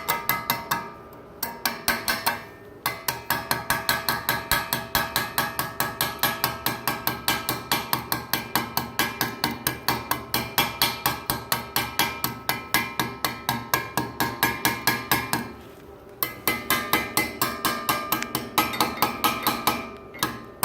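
Chipping hammer striking the slag off a fresh stick weld: rapid, even metal-on-metal taps, several a second, with the steel workpiece ringing after each blow and a few brief pauses.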